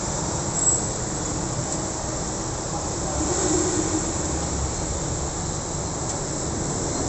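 Busy street traffic: motor scooters and minibuses passing, a steady blend of small engines, with a short sharp click under a second in.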